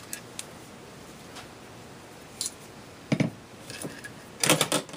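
Scattered sharp metal clicks and clacks as an AR-15 pistol and small tools are handled on a workbench, with a louder cluster of clacks near the end.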